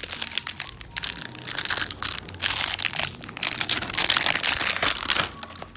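Plastic toy packaging being crumpled and torn open, a dense, irregular crinkling and crackling that stops about five seconds in.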